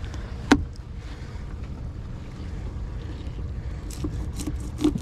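Steady low rumble of wind on the microphone aboard a fishing boat, with one sharp click about half a second in and a quick run of knocks in the last second.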